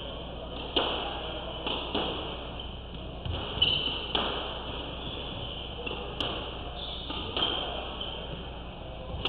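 Squash rally: the ball is struck by racquets and smacks off the walls in sharp, irregular knocks about once a second, with faint voices in the background.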